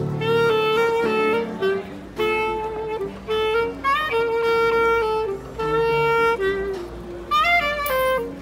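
Instrumental background music: a single melody line of held notes stepping up and down, over a light accompaniment.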